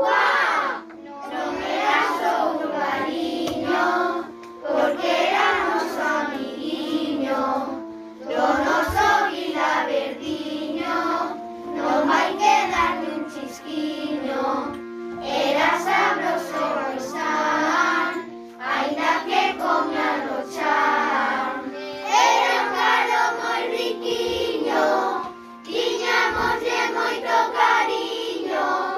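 Music: children singing a song together over instrumental backing, with held accompanying notes under the sung phrases.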